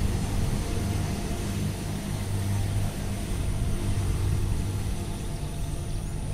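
Kubota single-cylinder diesel engine of a Quick two-wheel hand tractor running steadily as the tractor works through a muddy paddy field on cage wheels.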